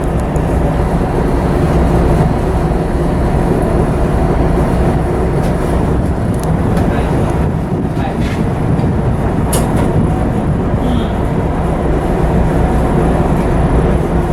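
Steady low rumble of a coastal cargo ship's Hanshin LA30G diesel main engine, heard aboard while the ship is under way on its sea trial. A couple of brief clicks come about the middle.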